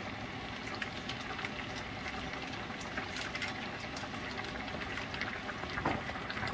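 Lobster pieces frying in a wok: a steady sizzling hiss with many small crackles and pops, a few louder ones near the end.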